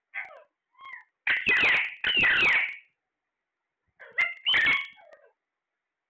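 Alexandrine parakeets calling: a few short calls, then loud squawking from about one to three seconds in and again around four to five seconds in.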